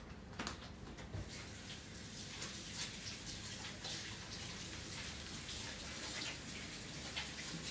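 Kitchen tap running while hands are washed under it: a steady rush of water that starts about a second in, after a couple of light knocks.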